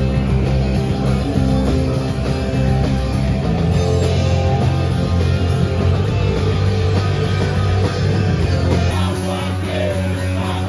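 Punk rock band playing live at full volume: distorted electric guitars, bass and drums hammering a fast steady beat.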